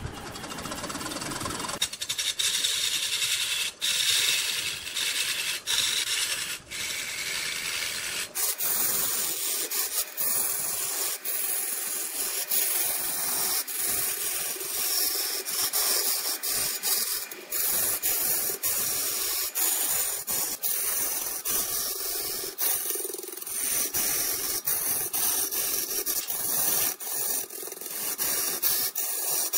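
Red incense wood spinning on a large wood lathe as a tool works its surface: a continuous scraping, rasping hiss that swells and dips. The sound changes in character about two seconds in and again around eight seconds in.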